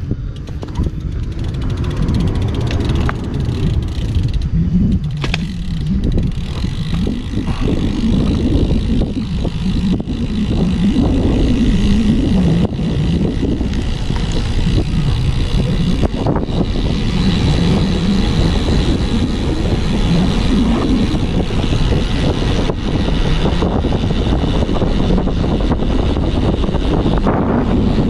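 Wind rushing over a bicycle-mounted camera's microphone on a fast road-bike descent, a steady low rumble that builds over the first several seconds as the bike picks up speed.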